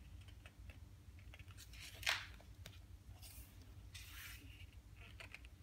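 Pages of a large photo book being turned by hand: a few papery swishes and rustles, the sharpest about two seconds in.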